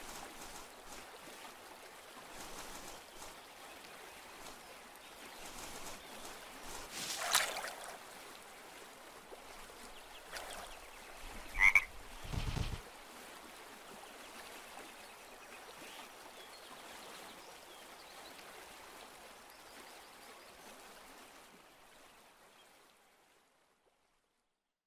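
Cartoon forest ambience, a steady background hiss, broken by a sudden noisy rush about seven seconds in and a short, sharp high squeak near twelve seconds followed at once by a low thud. The ambience fades out to silence a couple of seconds before the end.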